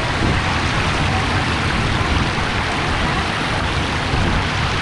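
Rainwater runoff pouring down from higher ground in a very strong flow, making a loud, steady rushing noise.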